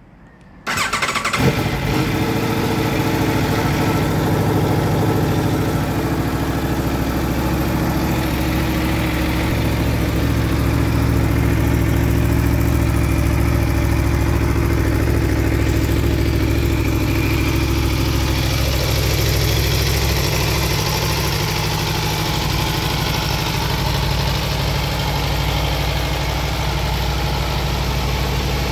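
Aprilia Tuono V4 1100 Factory's 1077 cc V4 engine started on the electric starter, catching about a second in, then idling steadily.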